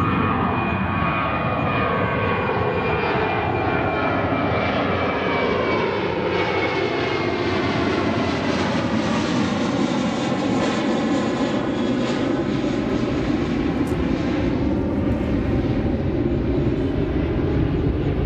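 Jet airliner engines at takeoff thrust: a steady, loud roar as the aircraft climbs out, with a high whine that slowly falls in pitch over the first half.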